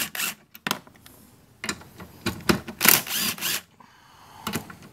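A DeWalt cordless driver running in several short bursts, the longest about a second and a half, as it spins 14 mm nuts off the wiper arms.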